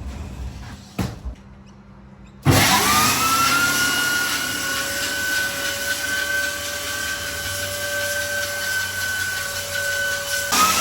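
Electric sander switched on about two and a half seconds in: its motor whines up to speed and then runs steadily, dipping briefly and picking up again near the end. A few light knocks come before it starts.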